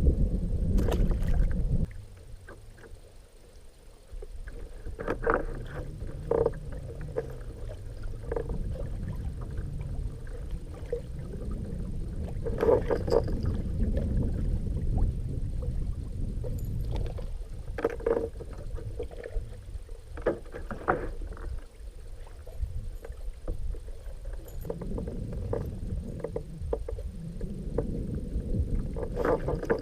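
Steady low rumble of a small fishing boat on the water, with irregular knocks and clicks every few seconds. The noise is louder at the very start and drops off about two seconds in.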